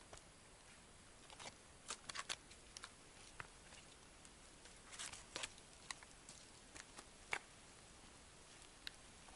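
Near silence with faint, irregular clicks and rustles, a few in quick succession around two seconds in and again around five seconds in, like dry twigs and bark being disturbed.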